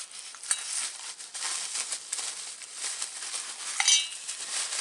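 Plastic parts bags rustling and crinkling as chainsaw kit parts are handled, with small clinks of metal parts. About four seconds in there is a sharper metallic clink that rings briefly.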